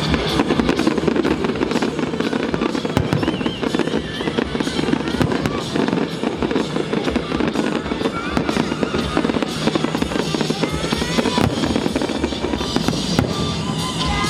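Fireworks display: a dense, continuous crackle of bursting shells with music playing along.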